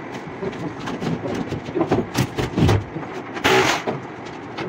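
Knocks and clatter as a chalkboard panel is taken down from a classroom wall, with a louder scraping burst about three and a half seconds in.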